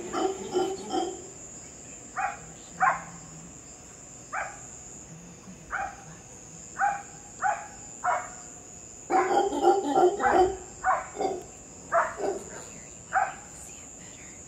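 A series of short, sharp animal calls at uneven intervals, which the uploader takes for monkeys. About nine seconds in they bunch into a rapid, noisy run of calls. A steady high insect trill carries on behind.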